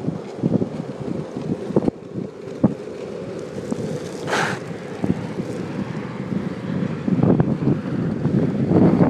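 Wind buffeting the microphone over the rolling rumble of cruiser skateboard wheels on asphalt, with a brief hiss about four seconds in and the rumble growing louder near the end.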